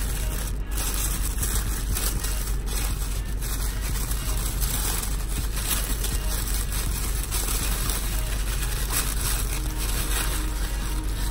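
A crinkly packaging bag rustling and crinkling as it is handled and unwrapped, over a steady low hum.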